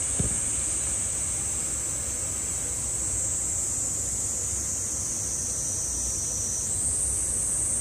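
Cicadas singing in a steady high-pitched chorus that shifts a little higher near the end, over a low background rumble, with one brief low thump just after the start.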